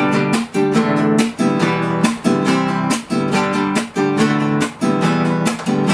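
Classical nylon-string guitar strummed in a steady rhythm: the instrumental intro before the singing begins.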